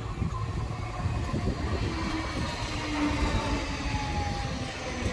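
Red Copenhagen S-train, an electric commuter train, running past the platform: a steady rumble of wheels on rail with a faint whine over it. Strong wind buffets the microphone.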